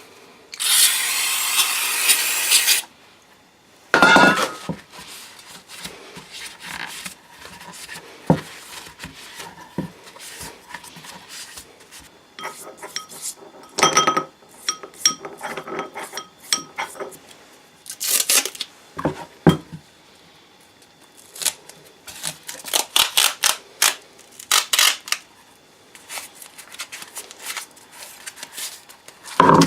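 Small metal parts clinking, scraping and being set down in irregular bursts. Near the start there is a loud, steady, hissing noise lasting about two seconds.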